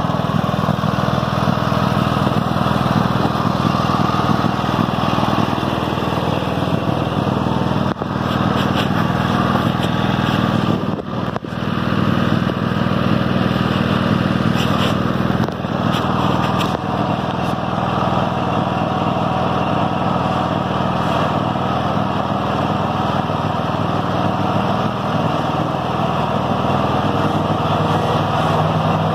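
Toro riding lawn mower's 22-horsepower Kohler 7000 series V-twin engine running steadily as the mower is driven along, with a brief dip about eleven seconds in.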